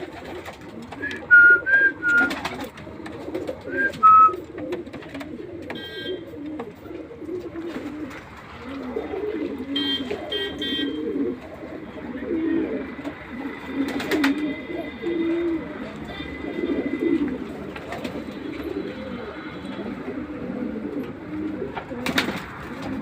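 Several high flyer pigeons cooing over one another in a steady low murmur, with a few short high chirps in the first few seconds and a couple of sharp clicks later on.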